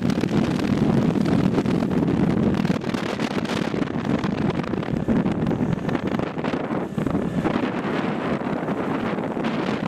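Wind rushing over the microphone of a camera mounted on a Buell Ulysses XT motorcycle at road speed, with the bike's engine and tyre noise underneath in a steady, dense rumble.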